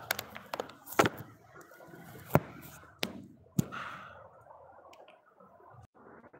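Handling noise from a hand-held phone being grabbed and picked up: a few sharp knocks, the loudest about a second in, over rustling, dying away to a faint hiss near the end.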